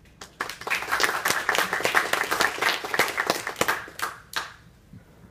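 Small audience applauding: many hands clapping together, starting about half a second in and dying away after about four seconds with a few last claps.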